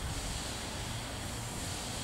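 Steam train at the platform: a steady low rumble with a faint hiss of steam.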